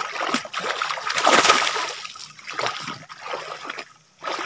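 Water splashing in irregular bursts, loudest about a second and a half in.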